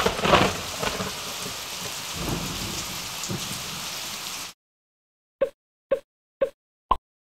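Rain sound effect, opening with a loud thunder crack and then a steady downpour hiss that cuts off suddenly after about four and a half seconds. Then come four short drip plops, about half a second apart.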